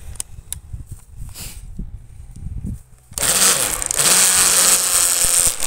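An electric power tool's motor runs at full speed for about two and a half seconds, starting a little past halfway and cutting off suddenly just before the end. A few faint clicks of handling come before it.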